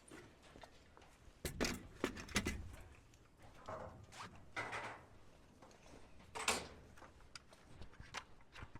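Irregular light knocks, thuds and short scrapes of lumber and hand tools being handled during framing work. A few sharper knocks stand out, about one and a half, two and two and a half seconds in, and again past six seconds.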